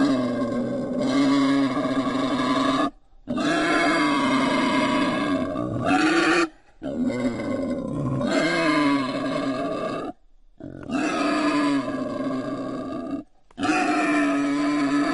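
Wild boar calls: long, steady-pitched vocalisations in bouts of about three seconds, broken four times by short pauses.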